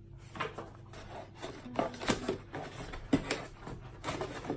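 Parcel packaging being handled: scattered short knocks and rustles, a few sharper knocks among them.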